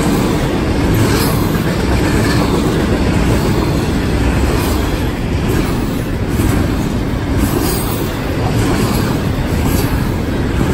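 Double-stack intermodal freight train of container-laden well cars rolling past, a loud, steady rumble of steel wheels on rail.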